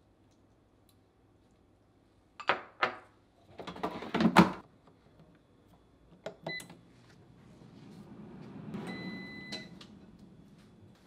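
Air fryer being handled and set: a few sharp knocks and clatters, then short electronic beeps from its control panel while a low whir swells and fades.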